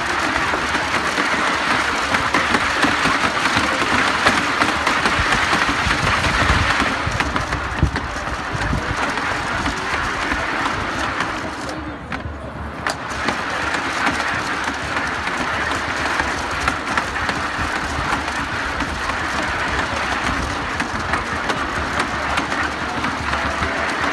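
Human-powered wooden treadwheel snow-cone machine running, its ice shaver grinding ice with a steady coarse hiss over the rumble of the turning wheel. The grinding drops away briefly about halfway through, then starts again.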